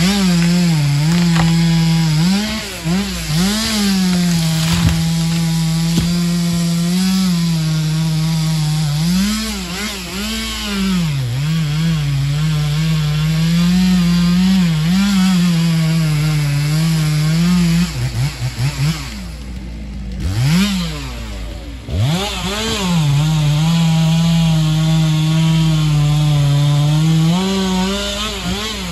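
Stihl chainsaw cutting at full throttle, its engine note dipping and rising as the chain bites into the wood. About eighteen seconds in it stutters and falls back briefly, then is revved up twice and cuts on at full speed.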